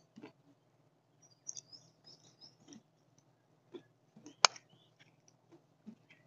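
Square steel nuts being handled, giving light metallic clinks and clicks, with one sharp click about four and a half seconds in.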